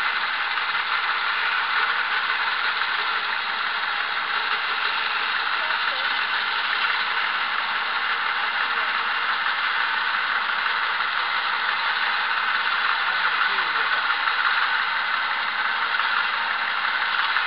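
Homemade bandsaw mill running steadily as its saw head is pushed along a log, a dense even mechanical noise that holds without a break.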